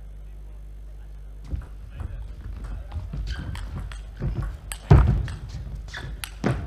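Table tennis rally: the ball clicks back and forth off bats and table, starting about a second and a half in, mixed with players' footwork on the court floor. One loud thud comes about five seconds in.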